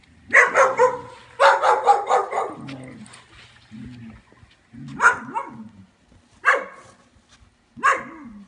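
Puppies barking in play: two quick runs of yapping barks in the first couple of seconds, then three single barks spaced about a second and a half apart.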